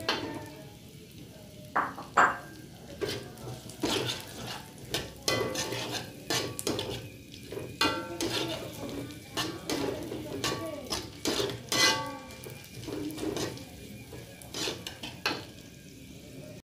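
Metal spatula scraping and clacking irregularly against a wok as chopped garlic, shallots and red chilies are stirred and sautéed, with the oil sizzling underneath.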